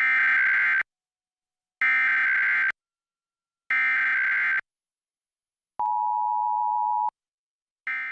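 Emergency Alert System data header: three identical short bursts of warbling data tones, about a second apart. Then comes the steady two-tone EAS attention signal, cut off abruptly after little more than a second. Another burst of data tones starts near the end and fades out.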